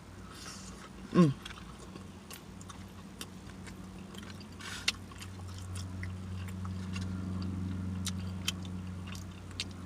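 Close-up eating sounds: food being chewed with wet lip-smacking clicks scattered throughout. About a second in there is one short, loud sound that drops sharply in pitch.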